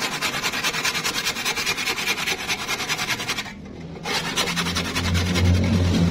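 Handsaw cutting across a wooden board in quick, even strokes, with a short pause a little past halfway before the sawing resumes. A low drone joins near the end.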